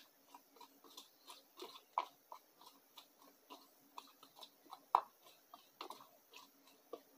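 Spoon stirring a thick paste of sawdust and wood glue in a small plastic tub: irregular soft clicks and scrapes, a few a second, the loudest about two and five seconds in.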